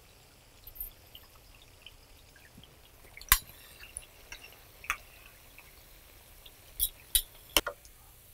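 Metal slotted spatula and wire mesh strainer clinking against each other and the electric skillet as fried bhajis are scooped out of the hot oil: one sharp clink about three seconds in, another a little later, and a cluster of three near the end, with faint scattered crackling from the oil in between.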